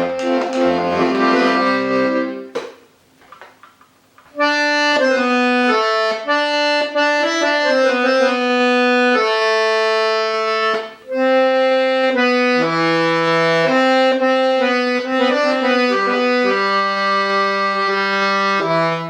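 Hohner Corona IIIR three-row diatonic button accordion playing a melody over bass notes and chords. It breaks off for about two seconds near the start, then the tune resumes.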